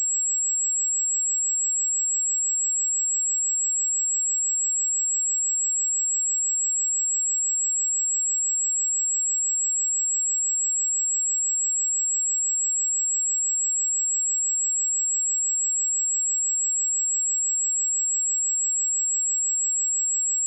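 A steady, pure 7647 Hz sine-wave test tone, a single high-pitched whistle-like note held at constant pitch and level.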